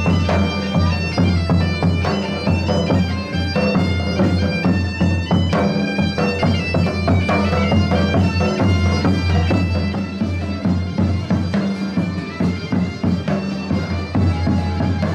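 Bagpipes playing a melody over a steady drone.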